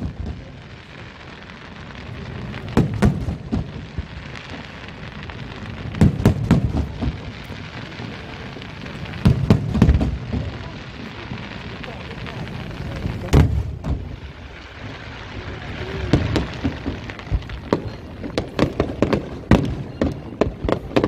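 Aerial firework shells bursting: deep booms every few seconds with crackling between them, then a quicker run of sharp reports, two or three a second, near the end.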